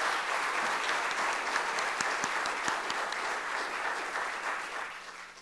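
Audience applauding, a dense steady clapping with a few sharper individual claps, fading near the end.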